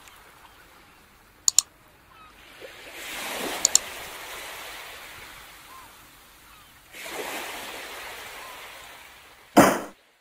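Ocean surf: two waves wash in, about three and seven seconds in, each swelling and then slowly fading. Short double clicks come about one and a half and three and a half seconds in, and a brief loud burst of noise comes near the end.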